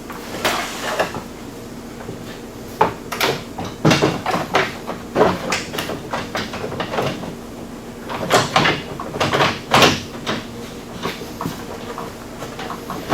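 Irregular knocks, clunks and scrapes as a bumper support is pushed and worked into place onto the front of the vehicle's frame after being trimmed to fit.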